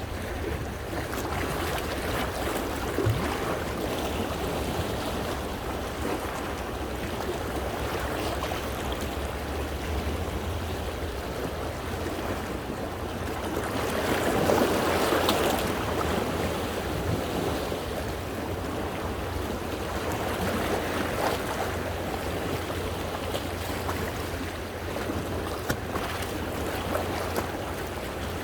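Sea waves washing against coastal rocks, a continuous wash of splashing and trickling water, with one bigger wave surging in about halfway through.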